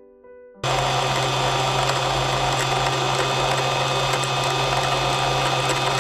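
Older sewing machine's motor driving the bobbin winder at a steady high speed. It starts suddenly about half a second in and runs as one steady hum.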